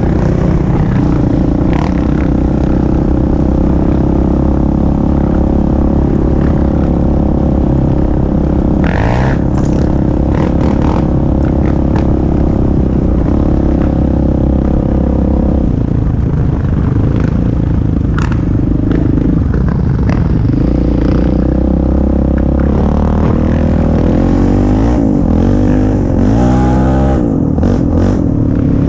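ATV engine running under way, its pitch rising and falling with the throttle, with scattered knocks and rattles as the machine rides over bumps in the trail.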